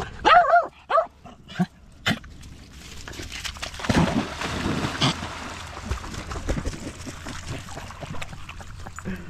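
A dog whines and yips a few times, high and excited. About three to four seconds in, a dog leaps into lake water with a loud splash and swims off, followed by lighter sloshing and wading in the shallows.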